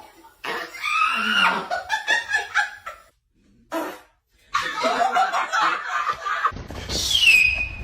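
A person laughing in bursts, with a short pause around the middle. Near the end a high sound slides down in pitch over a low rumble.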